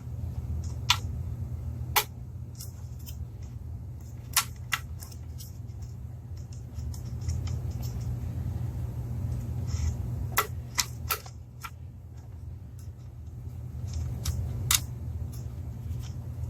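Sharp, isolated clicks and knocks, a few seconds apart, as a flashlight's Picatinny rail mount is handled and fitted onto a gun, over a steady low hum.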